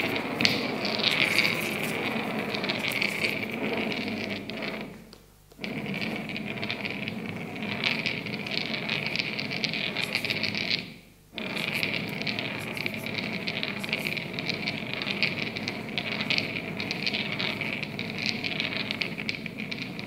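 Stones rubbed and scraped against each other and across a hard floor close to a microphone: a dense, continuous gritty scraping full of small clicks. It fades and drops away twice, about five and eleven seconds in, each time for under a second, then starts again.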